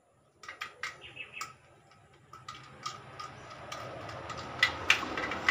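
Irregular small clicks and ticks of a handle and its screw parts being fitted onto a glass pot lid with a metal rim, two sharper clicks near the end. A steadier rustling noise builds through the second half.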